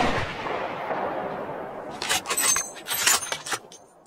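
Gunshot echo fading across the hillside, then a quick run of sharp clicks and clinks about two to three and a half seconds in.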